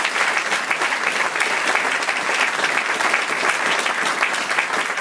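Audience applauding, dense steady clapping from a room full of people.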